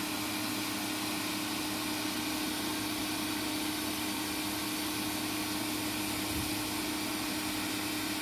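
Pressure washer running steadily: a constant hum from its motor and pump under the hiss of the water jet from the spray wand.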